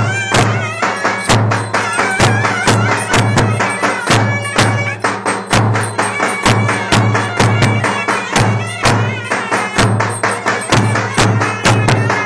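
Turkish wedding dance music with two clarinets playing a wavering, ornamented melody over a steady drum beat.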